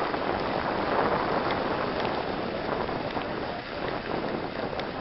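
Steady rushing noise of a car on the move: tyre and wind noise, with a few faint ticks.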